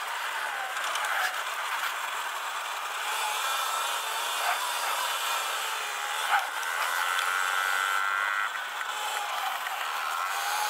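Sur-Ron Light Bee electric dirt bike ridden over a gravel track: a thin motor whine that wavers in pitch over steady tyre and chassis noise, with two sharp knocks from bumps, the louder about six seconds in.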